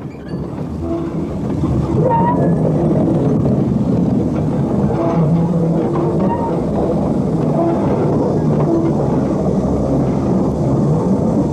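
Steam tank locomotive at a shed: a steady, loud rumbling mechanical noise that swells over the first two seconds, with brief squealing tones now and then.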